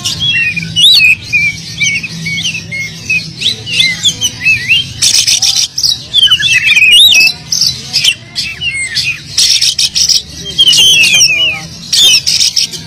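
Oriental magpie-robin singing hard, a fast run of varied whistled phrases that swoop up and down, mixed with harsh rasping notes about five, nine and twelve seconds in. The song is the busy, mimicry-filled kind that bird keepers call 'full isian'.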